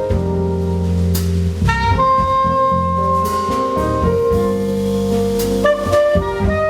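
Live jazz band playing: a soprano saxophone holds long melody notes over keyboards, low bass notes and a drum kit, with a cymbal strike about a second in and another near the end.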